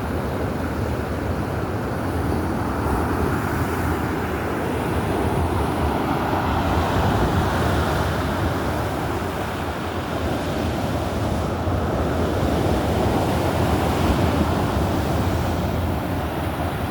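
Stormy sea surf: waves breaking and washing in continuously, swelling louder a few times, with a low rumble of wind on the microphone.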